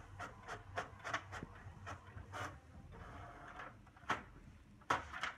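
All-in-one printer printing a page: a run of quick mechanical clicks as the print head shuttles, a steadier whir about three seconds in, and a few sharper clacks near the end as the paper feeds out.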